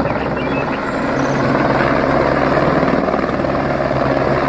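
Light helicopter hovering low, its rotor and engine running with a steady, even drone.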